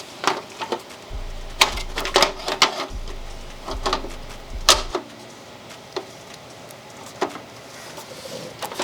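Irregular clicks and knocks of parts of a Lian Li O11 Dynamic Evo PC case being handled and fitted back into place.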